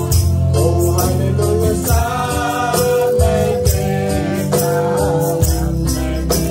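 A man and a woman singing a worship song together over electronic keyboard accompaniment, with a steady percussion beat.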